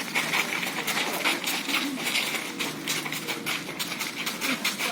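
Quick, irregular patter of running footsteps and scuffing over a steady background noise.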